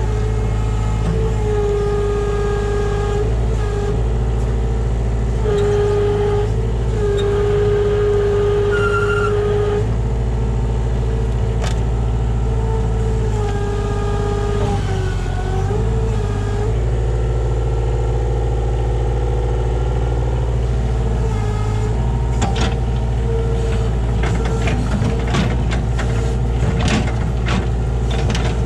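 Kubota KH60 mini excavator's diesel engine running steadily under load, with a whine that comes and goes and shifts slightly in pitch as the hydraulics are worked. A series of sharp knocks and clanks comes in the last several seconds.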